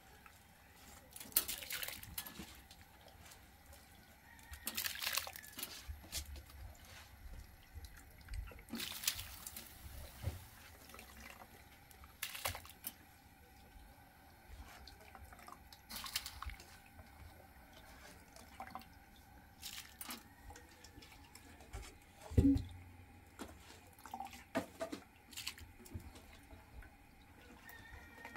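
Water sloshing and dripping as soaked wheat grains are rubbed and washed by hand in a plastic bowl, with scattered small splashes and clicks. A single louder thump comes about two-thirds of the way through.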